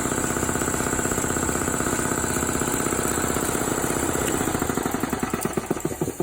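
Air compressor running with a fast, even pulsing beat, then slowing and fading from about five seconds in as it winds down.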